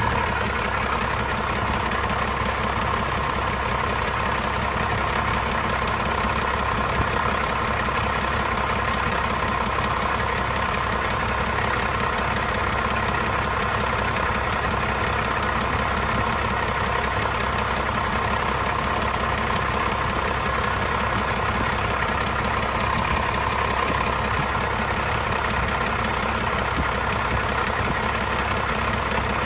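First-generation 12-valve Cummins 5.9-litre inline-six turbo diesel idling steadily as it warms up after a cold start.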